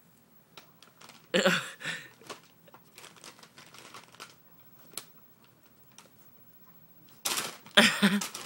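Brown paper bag crinkling and rustling as kittens play in it. There are two loud bursts, one about a second in and one near the end, with lighter scratches and taps in between.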